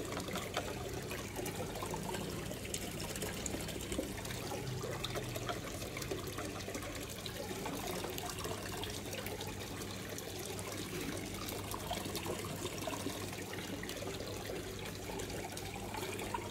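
Water trickling steadily, with a low steady hum underneath.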